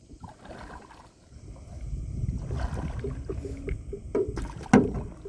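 Canoe paddling: paddle strokes through the water under a low rumble, with two sharp knocks a little past the four-second mark.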